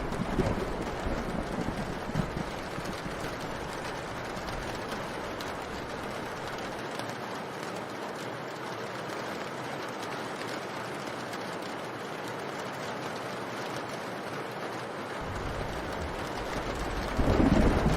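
Steady rain, with a rumble of thunder dying away in the first couple of seconds and another rolling in near the end.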